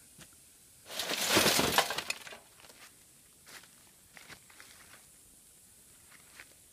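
Glass of a shot-out CRT television's picture tube breaking and crackling for about a second and a half, followed by a few faint clinks of loose glass.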